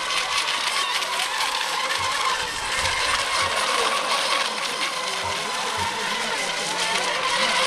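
Electric model racing boats running at speed, a steady high motor whine over a constant hiss, with a few soft low thumps.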